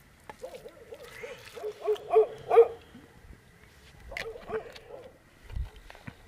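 Dogs barking: a quick run of barks that grows loudest about two and a half seconds in, then a shorter run about four seconds in.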